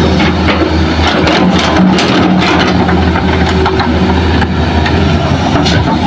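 Hitachi hydraulic excavator's diesel engine running steadily, with a clatter of rocks and fill soil tipping from its bucket into a steel dump-truck bed about one to two and a half seconds in.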